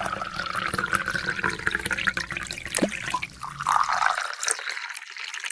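Water pouring and trickling, with small splashes and drips throughout; it cuts off suddenly at the end.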